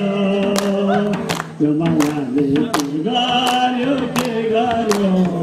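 A group of men singing a Deusi Bhailo Tihar song together in long held notes, over a steady beat of sharp claps and drum strokes about twice a second.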